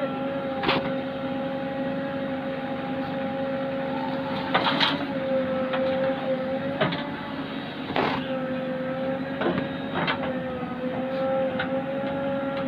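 A JCB backhoe loader's diesel engine running steadily with a hydraulic hum that wavers slightly in pitch, broken by about six sharp knocks and clunks.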